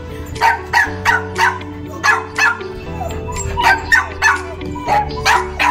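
A dog barking repeatedly in short, sharp barks, about a dozen in quick runs with brief pauses, over background music with held notes.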